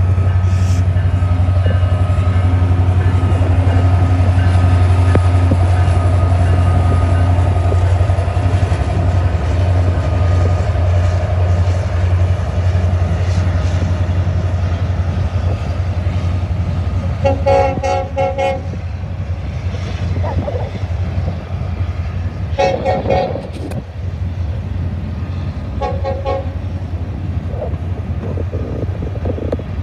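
Norfolk Southern diesel freight locomotives passing close by, their engines making a steady deep drone. The drone gives way to the rolling clatter of freight cars. In the second half a train horn sounds three times, long, long, then short, fainter than the engines, the pattern of a crossing signal.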